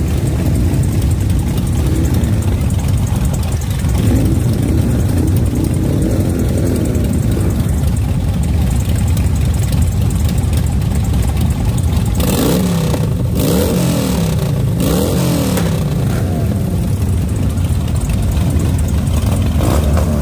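Several motorcycle engines, mostly cruisers, idling together, revved up and down again and again, most strongly in the middle of the stretch.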